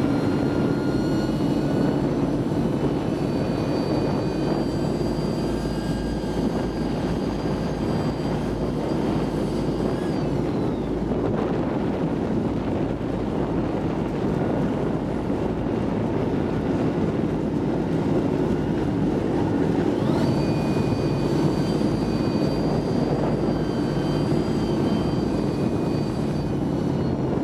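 A vehicle driving along a gravel track: a steady engine and running rumble with a thin high whine that drops in pitch about ten seconds in and climbs back up near twenty seconds.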